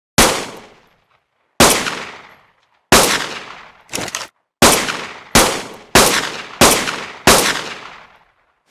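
Pistol-shot sound effect: nine single shots, each a sharp crack with a short fading echo tail. They come roughly a second apart, closer together in the second half, and the one near four seconds is quieter.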